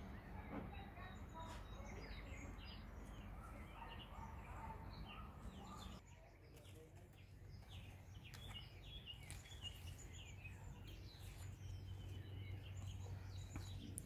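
Many birds chirping and calling, faint, with short repeated chirps throughout over a low steady hum.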